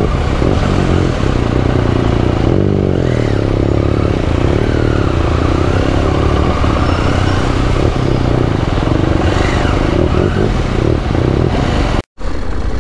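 KTM 890's parallel-twin engine heard from the rider's seat, revving up and down at low speed while filtering through stop-and-go traffic. The sound cuts out for a moment near the end.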